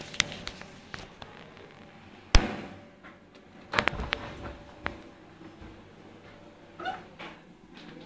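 A cat and a puppy scuffling in a play-fight: scattered light taps and clicks of paws and claws, with one sharp thump about two seconds in and a quick cluster of knocks near four seconds.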